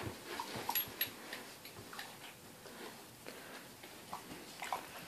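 Puppy and large dog play-fighting on soft bedding: scattered soft clicks and bumps of their tussling, with a few faint, short dog whimpers.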